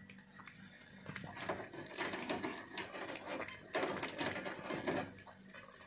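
A cat eating instant noodles mixed with raw egg from a plate: wet chewing and smacking in irregular runs, busiest in the middle and tailing off near the end.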